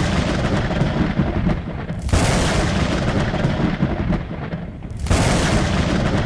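Loud rumbling noise that starts abruptly and surges again about two seconds in and about five seconds in.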